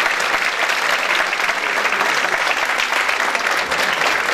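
Steady applause from a theatre audience, with the cast on stage clapping along.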